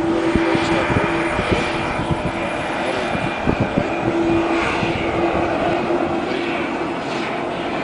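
Helicopter engine running steadily on the ground, a constant noisy drone with a steady hum, with irregular low buffeting in the first few seconds.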